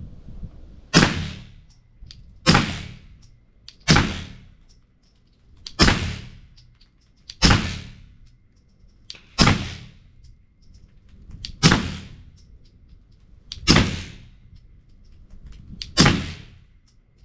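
Nine slow, single suppressed shots from a 9mm pistol fitted with a Griffin Armament Resistance 9mm suppressor, spaced about one and a half to two and a half seconds apart, each with a short reverberating tail.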